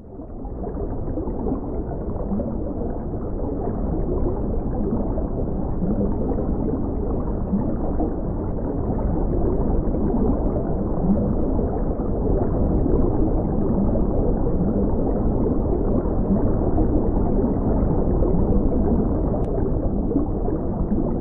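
Muffled underwater ambience: a steady low rumble with a bubbling, gurgling texture and no high tones. It fades in over the first second.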